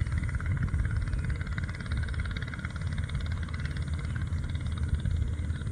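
A small engine running steadily, a low continuous drone with a fast, even pulse.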